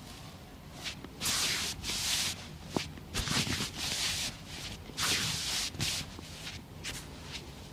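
Hands rubbing and sliding over skin and clothing in a massage: a run of short swishes, with one short sharp click about three seconds in.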